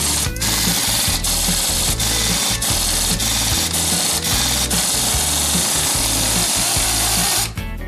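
Hand-held pneumatic tool running loudly against the steel hub and nut of a front axle, in long runs broken by brief pauses, and cutting off about seven and a half seconds in. Background music plays underneath.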